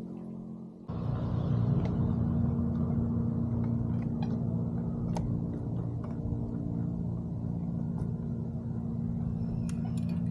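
A boat motor hums steadily, with a low rumble that jumps up suddenly about a second in and holds.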